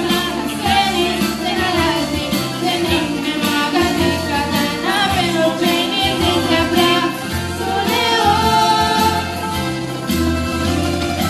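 Live band playing a Greek song: electric keyboard and bouzouki, with girls' voices singing over them.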